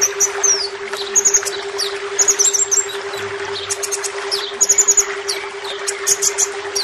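Van Hasselt's sunbird (kolibri ninja) singing: a quick series of short, high chirps and brief downward-sliding twitters. Behind it runs a steady haze of trickling water and a constant low hum.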